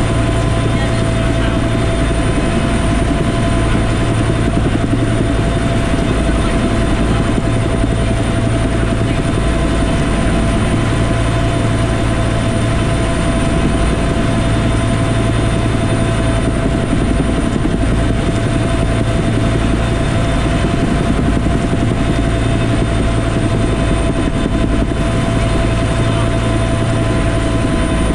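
Cabin noise of a Bell UH-1 Huey turbine helicopter in flight, heard from the cockpit. The rotor and turbine make a steady, loud low drone with several constant tones over it, unchanging throughout.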